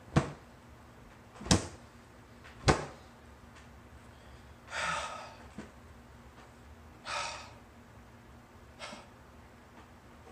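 Three sharp thumps about a second apart, followed by two breathy exhales or sniffs a couple of seconds apart and a fainter third one.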